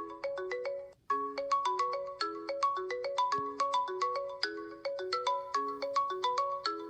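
JusTalk Kids app ringtone: a quick looping melody of short, bright notes. It breaks off for a moment about a second in and then starts over.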